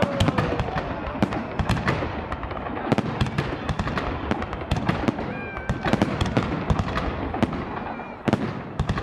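Festive fireworks salute: a dense, continuous run of bangs and crackling, with many shells bursting in quick succession.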